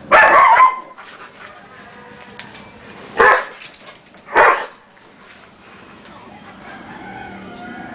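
Dog barking: three barks, a longer one at the start, then two about a second apart near the middle.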